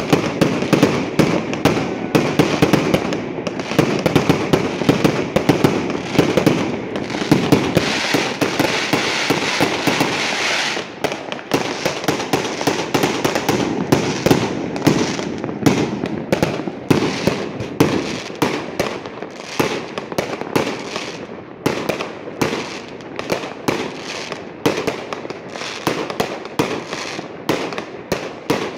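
Aerial fireworks bursting in a rapid barrage of bangs and crackling, several a second. The crackling is dense and continuous for about the first ten seconds, then thins to a steady string of separate sharp bangs.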